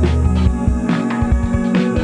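Background music with a bass line and drum hits.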